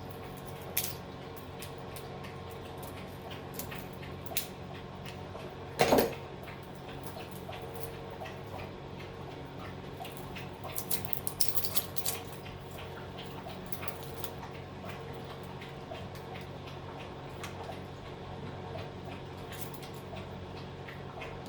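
Scattered metallic clinks and clatter of scrap transformer parts and copper windings being handled by hand. There is one louder ringing clank about six seconds in and a quick run of clinks about halfway through, over a steady low hum.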